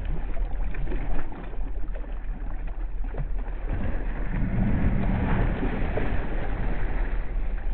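Water splashing and churning as a large muskie thrashes in a landing net at the side of a boat, in irregular bursts. A low steady rumble runs underneath and grows louder about halfway through.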